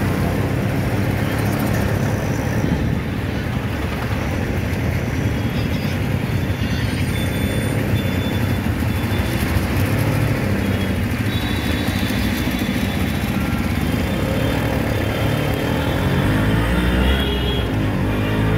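Auto-rickshaw engine running steadily on the move through city traffic, with the rumble of passing scooters and motorcycles mixed in; the low rumble grows a little louder near the end.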